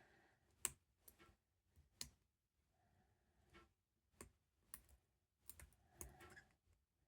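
Faint, scattered metallic clicks of a lock pick and tension wrench working the pins inside a padlock during single pin picking, irregularly spaced. The clearest come about two-thirds of a second in and at two seconds.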